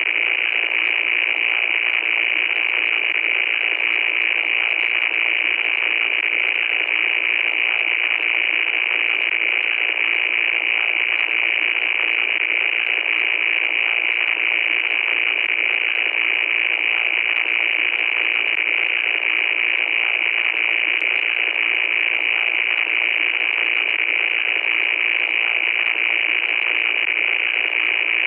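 Loud, steady static hiss, thin with no bass and brightest in a high band, with faint crackles and a faint steady tone under it.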